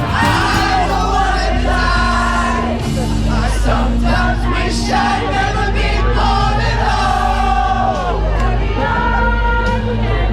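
Music with several voices singing together over steady held bass notes.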